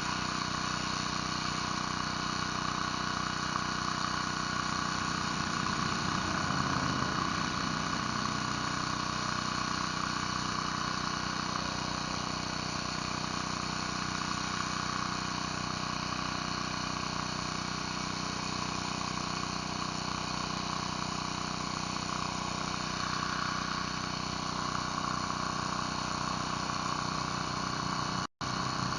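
Gas pressure washer engine running steadily under load while the surface cleaner sprays concrete, with a constant hiss of water spray. The sound drops out for an instant near the end.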